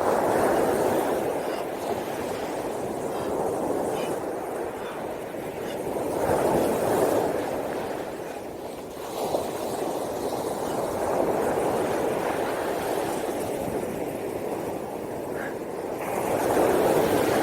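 Sea surf breaking on a beach: a steady rushing wash that swells and ebbs every few seconds.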